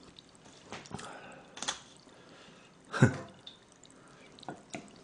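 Tongs lifting soaked ugeoji and chunks out of a pan of gamjatang broth, with broth dripping and splashing back into the pan. Scattered clicks and splashes, the loudest about three seconds in.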